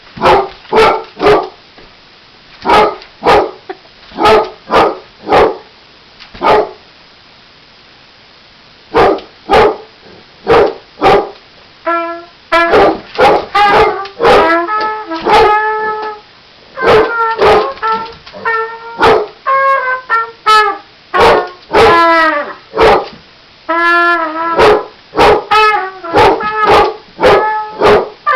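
Basset hound barking over and over in short barks, with a pause of a couple of seconds before the middle. Partway through, a trumpet starts playing held notes, and the dog keeps barking over and between them.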